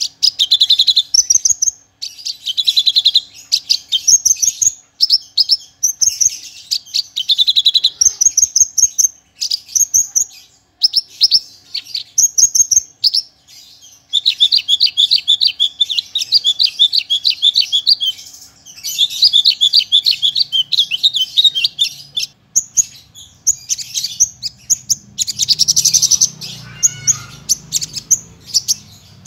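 Javan bush lark (branjangan, parva form) singing a long, varied song packed with mimicked phrases. Quick phrases of fast trills alternate with sharp high notes, separated by brief pauses, and the trill runs grow longer around the middle.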